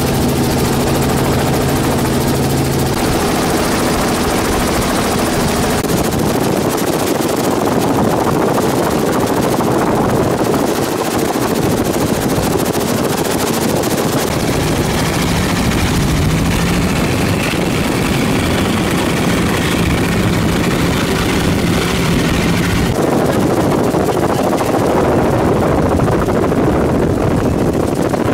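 Loud, steady engine noise mixed with a rushing hiss. Its pitch and character change abruptly a few times.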